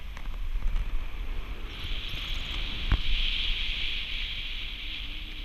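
Wind buffeting a camera microphone in paraglider flight: a low rumble under a steady hiss that grows stronger about two seconds in, with two short knocks, the louder one about three seconds in.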